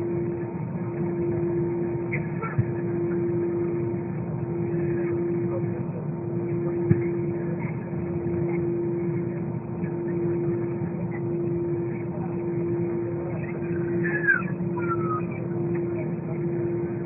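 Airbus A320 cabin noise: a steady low rumble with a hum that pulses about every two seconds, a few light knocks, and faint voices.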